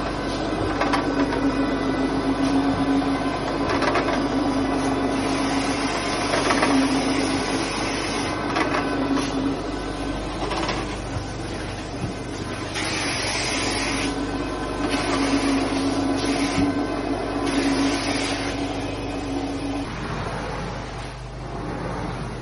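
Carpet-cleaning extraction machine running steadily with a hum, its vacuum drawing through the hose as the cleaning wand works the carpet. Several short hissing surges of suction come in the second half, and the hum drops out near the end.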